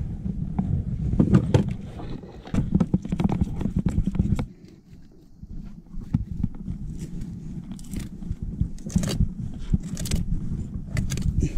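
Scraping and handling noises as a whole trevally is cut up with a serrated knife on a plastic kayak hatch for bait, in short irregular strokes, over a low wind rumble on the microphone.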